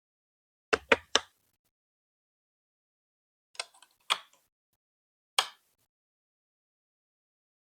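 Sharp, hard clicks of Lego Duplo plastic pieces knocking together: three in quick succession about a second in, then three more spaced out between about three and a half and five and a half seconds.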